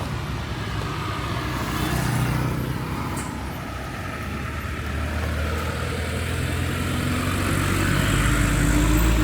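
Car engine running at low revs, a steady low hum with road noise over it.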